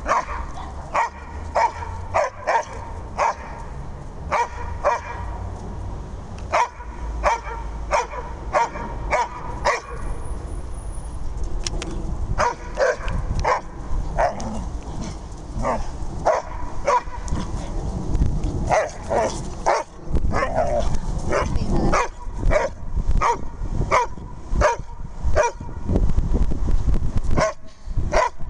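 A Dobermann and an Irish Wolfhound at rough play, with short barks and yips repeated throughout, several a second in places.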